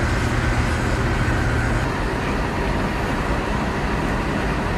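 Steady rumble of heavy machinery running, with a constant low engine hum that drops away about two seconds in, leaving a steady noise.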